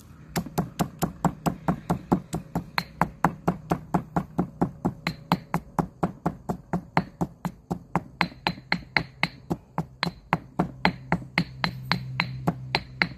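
Rapid, steady strikes of a kitchen utensil on the food, about four a second, as the pennywort and pork-rind salad ingredients are worked together.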